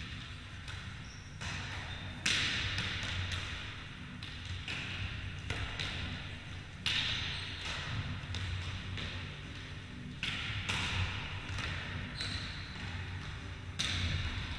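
Volleyballs being hit and bouncing on a wooden sports-hall floor: a sharp smack every few seconds, with fainter ones between, each followed by a long echo in the hall. A steady low hum sits underneath.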